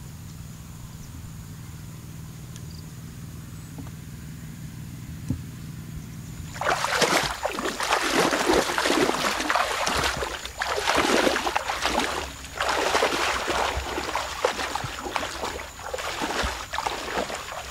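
Splashing and sloshing of legs wading fast through shallow water. It starts suddenly about a third of the way in and comes in uneven surges with each stride.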